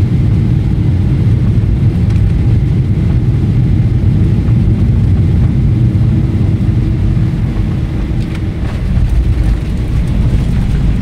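Airliner cabin noise on landing: a steady, loud rumble of the engines and airflow as the jet comes over the runway and rolls out, with a steady hum through the middle of it.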